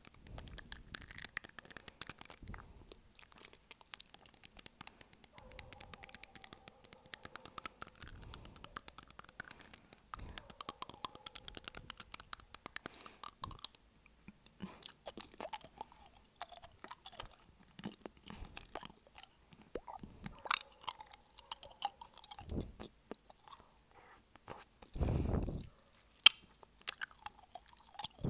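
Long fingernails tapping rapidly on teeth, mixed with wet chewing and clicking mouth sounds, picked up very close by an earphone microphone. A short low rumble on the microphone about 25 seconds in.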